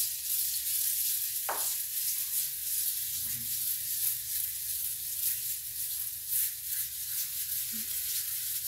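Floor scrub brush scrubbing wet ceramic floor tiles, a steady high hiss of bristles working oxalic acid crystals across the surface to dissolve scale. One short sharp click about a second and a half in.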